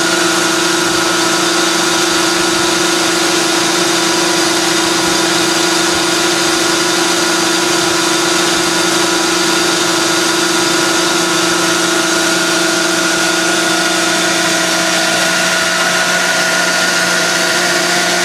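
Travaini liquid ring vacuum pump driven by a 60 hp Baldor electric motor, running steadily while pulling close to 20 inches of mercury vacuum. It makes a loud, unchanging hum with a few constant pitches over a rush of noise.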